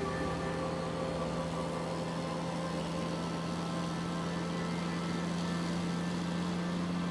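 Car engine and road noise heard from inside the cabin while driving, a steady even drone.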